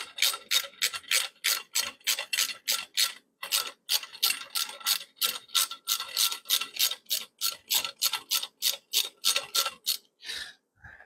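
Hand ratchet clicking in quick repeated strokes, about four clicks a second with a short break about three seconds in, as it runs a crash-bar mounting bolt into the engine; the clicking stops about a second before the end, followed by a soft rustle.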